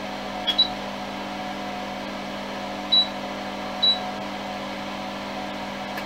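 Small extractor fan running with a steady hum. A sharp click about half a second in, and three short high beeps, one just after the click and two more around three and four seconds in.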